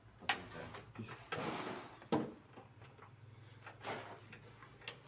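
Workshop handling noises: several sharp knocks and clanks spread out, with a short scraping rustle about a second and a half in, over a low steady hum.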